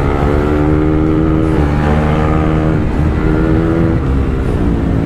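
KTM RC 390 single-cylinder engine running hard at high revs while riding at speed, with wind rush. The engine note sags slightly and dips briefly twice, about a second and a half in and again near the end.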